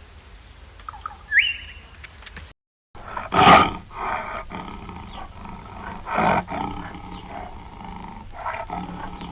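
A few faint bird chirps, then a short cut to silence, then an animal's loud pitched calls, strongest about three seconds in and again about six seconds in, with a weaker one near the end.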